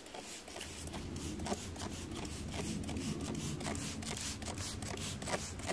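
Rapid, irregular rustling and clicking of lime tree leaves and twigs being handled and brushed close to the microphone.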